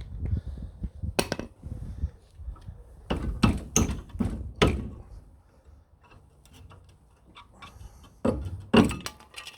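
Irregular metallic knocks and clicks of a worn brake pad being worked out of a Rover 800's front brake caliper carrier, with a cluster of louder knocks in the middle and another near the end.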